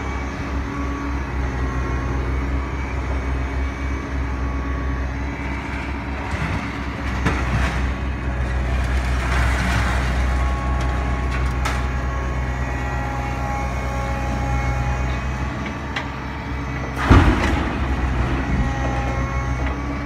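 Scrap-handling machine with an orange-peel grab working: its engine drones steadily with a high whine over it, while scrap metal crashes and clatters several times as loads are dropped into a railway wagon, the loudest crash about seventeen seconds in.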